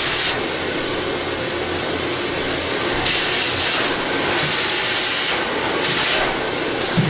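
Steady loud rushing noise of a running machine, with three bursts of sharper hiss about three, four and a half and six seconds in.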